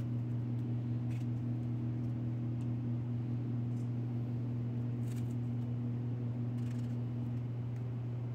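Steady low background hum, with a few faint soft clicks as a knife trims and halves strawberries held in the hand.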